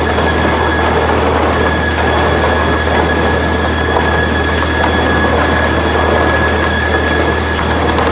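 Newman PM-1600 high-speed planer matcher running with boards feeding through its feed rolls: a loud, steady mechanical din with a constant high whine and a low hum underneath.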